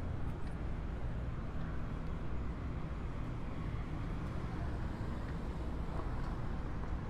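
Street ambience dominated by a steady low engine rumble, like traffic or an idling vehicle.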